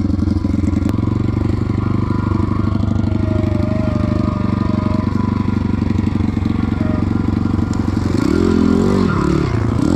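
Small single-cylinder four-stroke pit bike engine idling with fast, even firing pulses, then revved up and down several times near the end.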